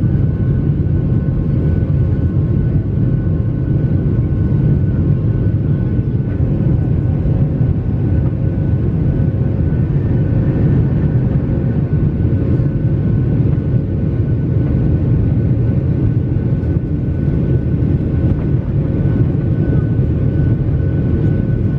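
Boeing 737 jet engines and airflow heard inside the cabin while climbing after take-off: a steady low rumble with a few faint steady whining tones over it.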